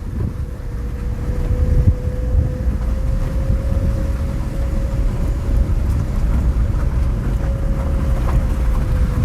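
Small car driving on a gravel road: a steady engine drone whose pitch rises slightly and falls back, over a loud low rumble of tyres and wind.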